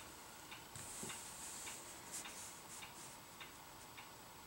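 Faint rustle of hands smoothing cotton fabric and sliding a clear acrylic quilting ruler over a cutting mat. Soft ticks sound behind it, a little under two a second.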